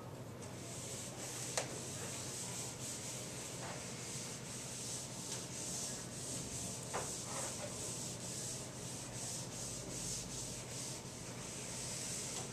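Whiteboard eraser wiping across a whiteboard in many quick strokes, a steady scratchy hiss. A sharp tap sounds about a second and a half in and another around seven seconds in.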